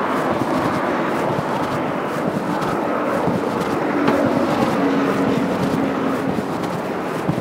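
City road traffic: steady noise of cars passing, with one vehicle's engine hum standing out for a few seconds in the middle.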